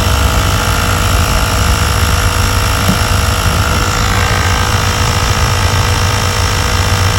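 Sun Joe 24V cordless air compressor running steadily with a loud, even drone, pumping air into a new ATV tire whose bead has not yet sealed on the rim.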